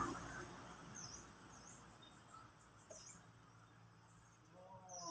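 Quiet outdoor ambience with a few short, high bird chirps spread through it; a man's voice starts near the end.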